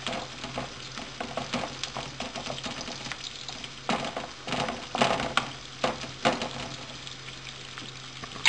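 Chopped onions and pine nuts sizzling in hot oil in a frying pan while a wooden spoon stirs them, toasting the pine nuts. The spoon scrapes and knocks against the pan, loudest about four to six seconds in and once at the end.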